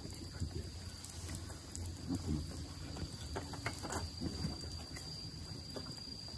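Wood fire crackling in a campfire grill, with scattered faint clicks and a few soft knocks, over a steady high insect trill.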